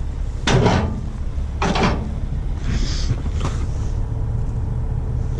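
Two heavy clunks about a second apart, then a short hiss, over a steady low rumble.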